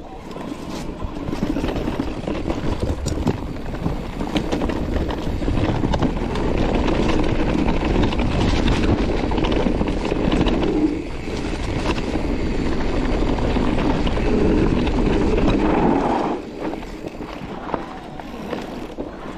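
Mountain bike riding fast down a dirt and grass trail: continuous tyre rumble and wind noise, with scattered clicks and rattles from the bike over bumps. It gets quieter about sixteen seconds in.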